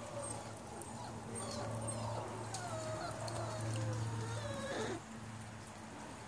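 A puppy whining in high, wavering cries that rise and fall, over a steady low hum.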